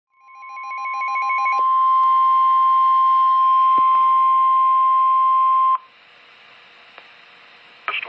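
NOAA Weather Radio warning alarm tone (the 1050 Hz attention signal) from a weather radio receiver's speaker: one steady high tone that swells in over the first second and a half and cuts off suddenly after about six seconds, signalling that a warning message follows. A quick pulsing beep runs over the tone's first second and a half, and faint radio hiss follows the cutoff.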